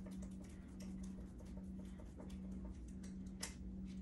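Faint, scattered small clicks and ticks of fingers and a small Phillips screwdriver handling a tiny screw and clamp on an electric scooter's handlebar stem, with one sharper click about three and a half seconds in. A steady low hum runs underneath.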